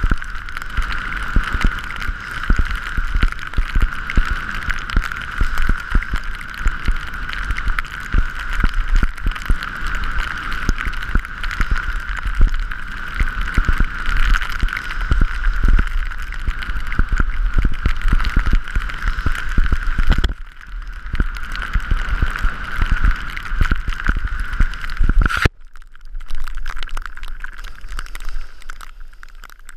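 Wind rushing and buffeting over an action camera's microphone as a skier runs downhill, mixed with the hiss of skis on snow. The noise thins a little about 20 seconds in and drops sharply at about 25 seconds.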